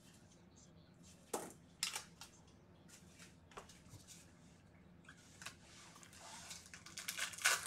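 Foil-wrapped trading card packs handled in gloved hands: a few sharp taps and rustles, then crinkling of a pack wrapper that builds near the end.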